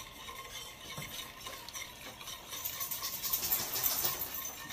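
Spatula stirring and scraping a thick mashed ube (purple yam) mixture around a stainless steel pan, growing louder about halfway through.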